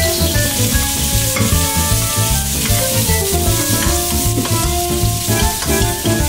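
Pork belly pieces sizzling in hot oil in a wok. The hiss starts as the meat drops into the pan, and a spoon scrapes a few times as the pieces are stirred.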